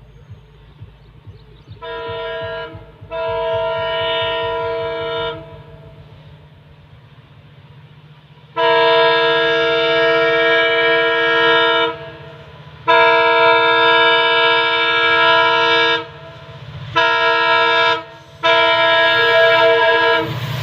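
WDP4D diesel locomotive's horn sounding a chord of tones in six blasts as a warning at a level crossing. The first two blasts are shorter and fainter, the next two long and loud, and two more follow. A low rumble runs underneath.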